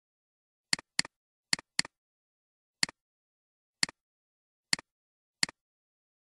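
Computer mouse clicks: about eight sharp clicks, each a press followed closely by a softer release. The first four come in two quick pairs like double-clicks, with dead silence between clicks.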